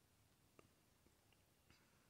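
Near silence: room tone, with two faint clicks, one about half a second in and one near the end.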